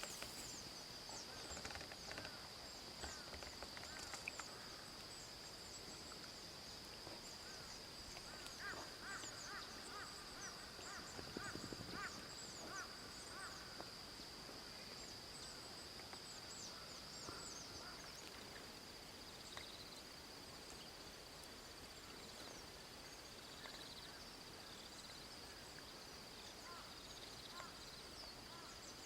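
Outdoor nature ambience: a steady high-pitched insect drone with many short bird chirps over it, and a brief run of repeated calls about a third of the way in.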